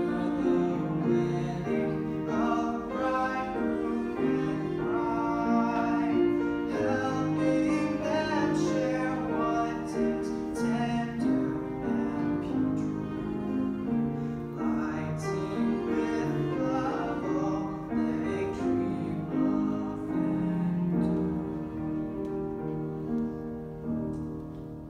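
A solo male voice sings a slow classical-style song into a microphone, accompanied by piano. The music softens near the end.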